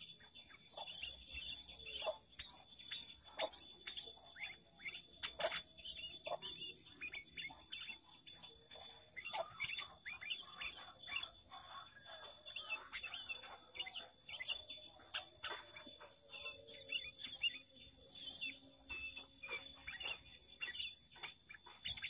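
Sooty-headed bulbul (kutilang) singing in full voice: a busy, varied run of short sharp chirps and quick whistled notes, one after another.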